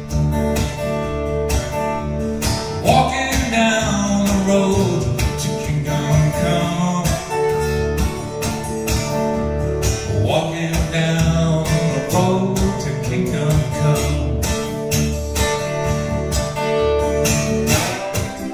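Acoustic guitar played live through the PA, picked in a steady, quick rhythm.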